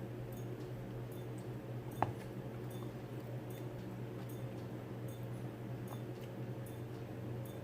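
Close-miked mouth sounds of a person chewing food, soft irregular small clicks, over a steady low hum. A single sharp click about two seconds in.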